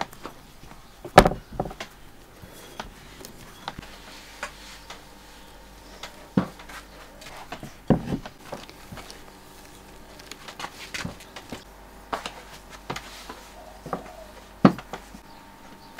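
Scattered knocks and taps of dumpling-making hand work at a wooden kitchen table: dumplings laid on a woven bamboo tray, chopsticks in a bowl of filling, wrappers handled and cut on a wooden board. The loudest knocks come about a second in and near the end.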